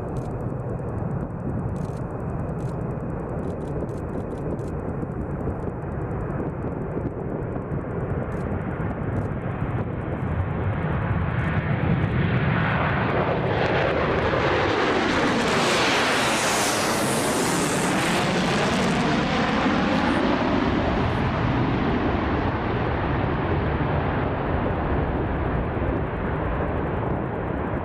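Rockwell B-1B Lancer's four afterburning turbofan engines at full afterburner on takeoff, the noise building as the bomber closes in and peaking as it passes directly overhead about halfway through, with a sweeping, phasing sound at the pass. The noise then eases off as it climbs away.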